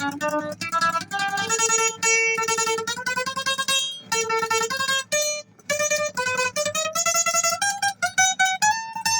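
Guitar music: a picked single-note melody on a plucked guitar, with short breaks about four and five and a half seconds in.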